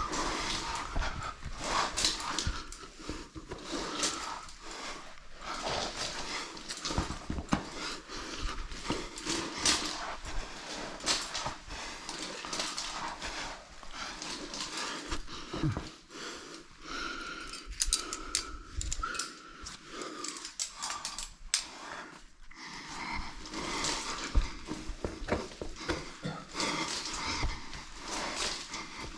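A rock climber's heavy breathing and grunting as he works up a chimney, mixed with irregular scuffing and scraping of shoes, body and gear against the rock.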